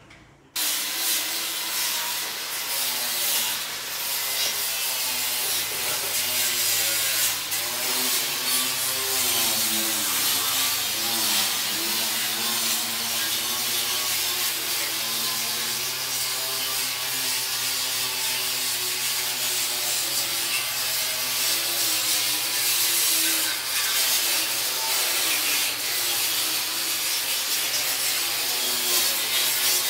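Power tool scrubbing the steel surface of a scrap-metal sculpture: a steady, loud abrasive rubbing, with a motor tone underneath that wavers up and down in pitch as the tool is worked over the metal.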